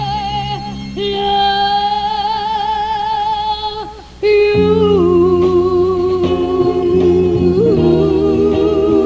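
A singer holding long notes with vibrato over a band accompaniment. After a brief drop just before four seconds in, the band comes back in louder under a new held note.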